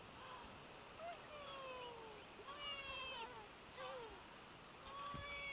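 A toddler's high-pitched wordless squeals and coos, several short gliding calls about a second apart, one long one falling in pitch.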